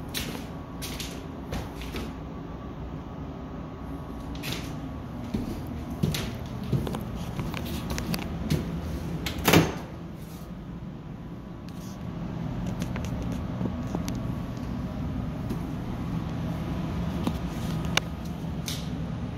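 Footsteps and scattered knocks from walking through an empty room on paper-covered floors, with one louder knock about halfway through as an interior door is opened. A low steady hum runs underneath.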